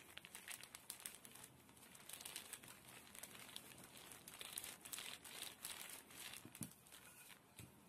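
Faint crinkling of a thin plastic sheet as a wooden rolling pin rolls dough out beneath it.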